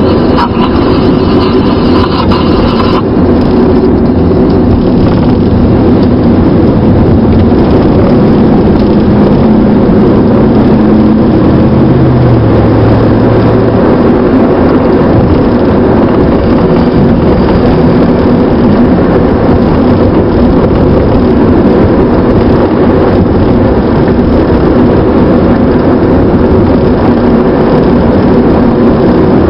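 Steady engine and road noise of a car being driven through city traffic, heard from inside the cabin. A few faint high tones drop out about three seconds in, and the engine note shifts briefly partway through.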